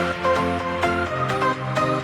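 Electronic background music with a steady beat and a melody of sustained synth notes.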